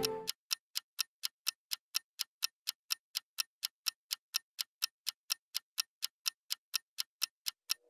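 Quiz countdown-clock sound effect: short, sharp, high ticks at an even pace of about four a second.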